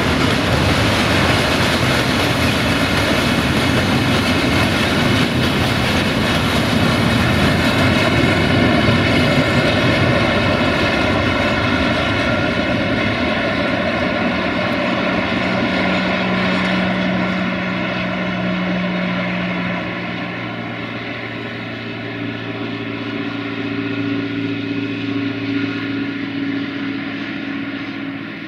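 Freight train of railway tank wagons rolling past on the rails, a continuous rumble and rattle of wheels that slowly fades as the train draws away. In the second half a steady droning hum rises above the rolling noise.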